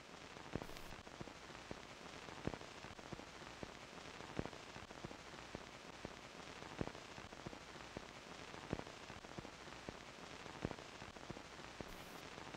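Faint crackling surface noise of an old recording: a steady hiss with scattered small clicks and a louder pop about every two seconds.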